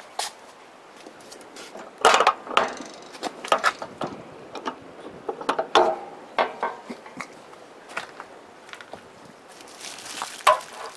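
A door being unlocked and opened: its lock and latch clicking and rattling in a run of sharp clicks and knocks starting about two seconds in, thinning out after that, with one more loud knock near the end.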